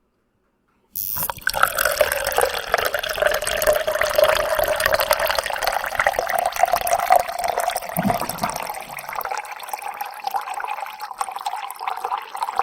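Water running out of a large water jug into a container, a steady filling sound whose pitch slowly rises as the container fills, starting about a second in and cutting off near the end.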